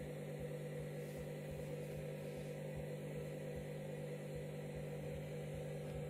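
Candy front-loading washing machine running on its bleaching cycle: a steady low hum from the machine, with water splashing into the foamy drum.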